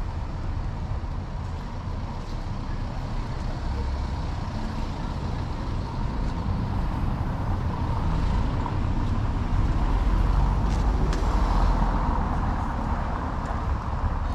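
Street traffic: a low engine rumble from a nearby motor vehicle that swells about eight seconds in and eases off near the end.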